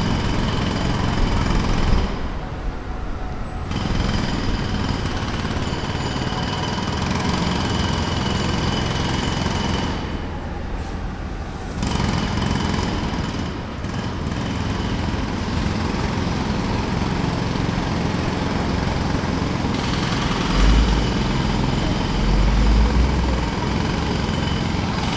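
Jackhammer hammering at a construction site, continuous and loud, with two short let-ups in the hammering.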